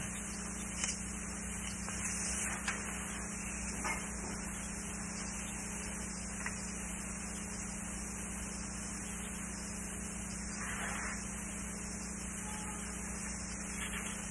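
Steady hiss and low hum of an old recording's background noise during a pause in the talk, with a few faint clicks and a soft rustle.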